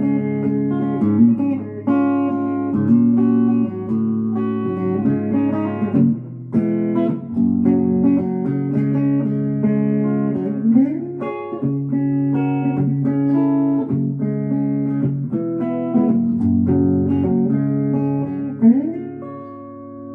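The Swender Pinecaster guitar played solo with no singing: picked notes and chords, with slides up the neck about eleven seconds in and again near the end, where a chord is left ringing and fades.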